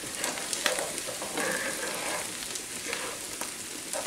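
Corn frying in margarine in a skillet, a steady sizzle with crackles, while a spoon scrapes and stirs the kernels around the pan.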